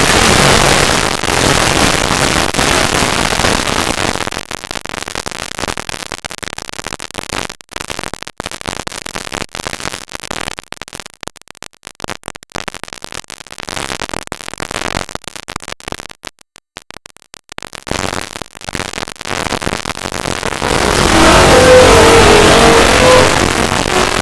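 Emergency Alert System alert audio, heavily sped up and distorted into a harsh, noisy wash. From about six seconds in it breaks into choppy stuttering bursts with short dropouts, then grows loud again near the end with a cluster of tones.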